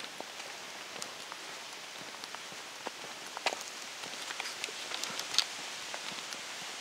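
Steady outdoor hiss with scattered light clicks and taps. Two louder clicks come about three and a half and five and a half seconds in.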